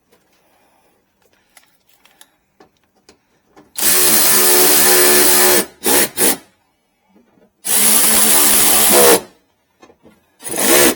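Cordless power drill driving the headlight mounting screws in: a run of about two seconds, two quick blips of the trigger, another run of about a second and a half, and a short burst near the end, the motor whine rising as it spins up.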